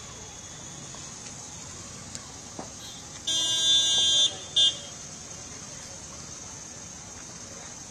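Vehicle horn honking over steady street traffic noise: one long honk of about a second, a little past the middle, then a short toot.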